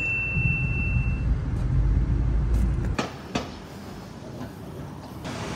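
Low rumble of road traffic, like a bus or truck going by, that cuts off abruptly about three seconds in. Two sharp clicks follow, then quieter street noise.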